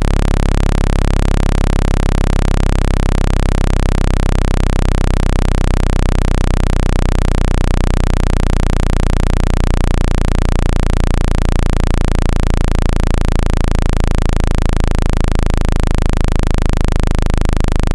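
Loud, steady synthetic low tone with a buzzy stack of overtones, a speaker-cleaning sound played to shake water and dust out of a phone speaker. From about eight seconds in, the lowest tones take on a fast flutter.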